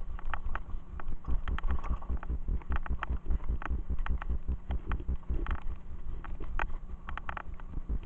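Mountain bike ridden fast over a bumpy forest dirt trail, heard from a bike-mounted camera: a continuous low rumble and buffeting from the tyres and the vibrating mount, with frequent sharp clicks and rattles from the bike.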